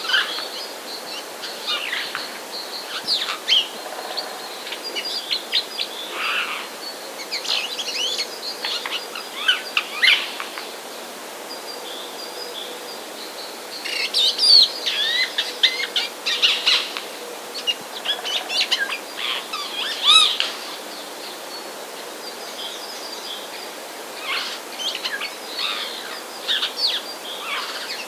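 Birds chirping and calling: clusters of short, high chirps and whistles, with quieter gaps between.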